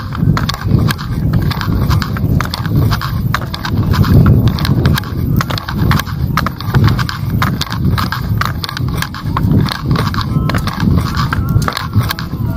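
Footsteps walking on an asphalt lane, a steady run of scuffs and taps, over a low uneven rumble of wind on the microphone.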